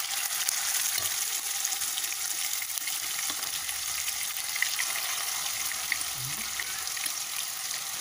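Masala-coated chicken pieces shallow-frying in hot oil in a pan: a steady sizzle with fine crackling spatters, and a spatula moving the pieces now and then.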